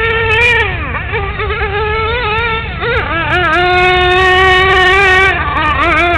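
Radio-controlled car's motor buzzing at high revs, its pitch dropping sharply about a second in, wavering, dipping again around three seconds, then holding steady for about two seconds before falling and picking up again near the end, over a low rumble.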